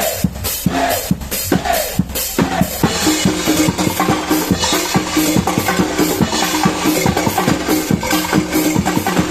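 A drumbeater percussion ensemble playing, with heavy drum strokes about twice a second. About three seconds in, a denser, faster rhythm takes over, with a steady pitched note held underneath.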